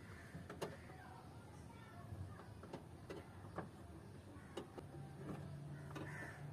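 Scattered light clicks and taps of small metal parts being handled and fitted inside a car door as a door-handle pin goes back in, about half a dozen spread over several seconds. A low steady hum joins about five seconds in.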